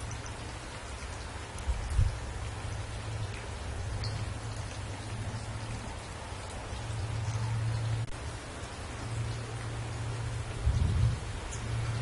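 Steady rain falling on leafy trees, an even hiss, over a low rumble that swells and fades. Two brief low thumps stand out, about two seconds in and near the end.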